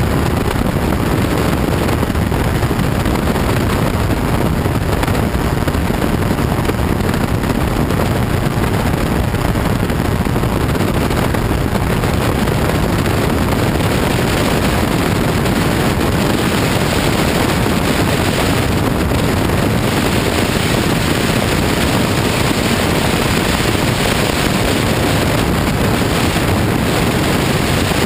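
Quicksilver Sport 2S ultralight's engine and pusher propeller running steadily at cruise in flight, under heavy wind rush on the strut-mounted microphone.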